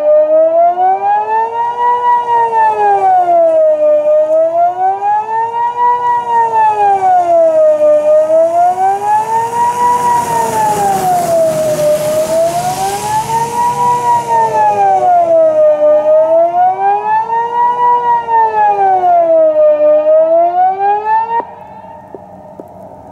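Swiss civil-defence siren sounding the general alarm: a loud wailing tone rising and falling about once every four seconds. It cuts off suddenly near the end.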